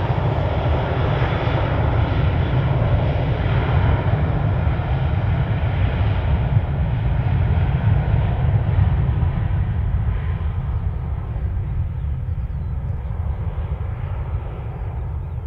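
Airbus A321's twin jet engines at takeoff power as the airliner accelerates down the runway. A loud, steady rumble slowly fades and loses its higher tones as the aircraft pulls away.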